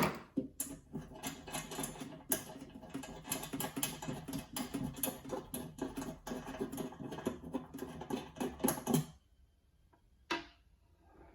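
Ryobi multi-tool working the screws out of an alarm control panel: rapid, irregular clicking and rattling for about nine seconds that stops abruptly, then a single click.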